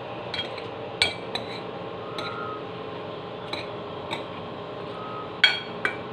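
Metal spoon clinking against a bowl while scooping food, about eight sharp clinks at irregular intervals, each ringing briefly. The loudest clink comes a little over five seconds in, over a steady low hum.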